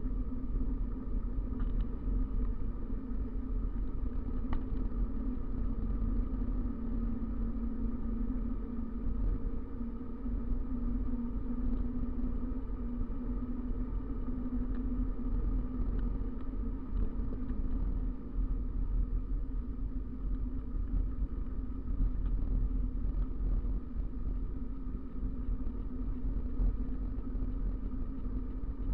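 Wind rumble on the microphone and tyre noise on asphalt from a bicycle descending a paved road at speed, steady throughout, with a few faint clicks.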